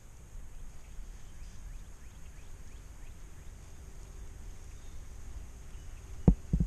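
Wind rumbling on the microphone, with faint bird chirps. About six seconds in come two sharp thumps, a fraction of a second apart.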